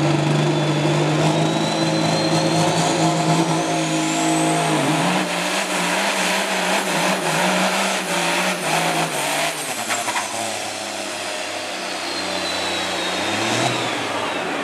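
Semi truck's diesel engine running hard under full load as it pulls a weight sled, its note shifting about five seconds in. A high whistle, typical of the turbocharger, climbs steadily over the first several seconds and falls back near the end.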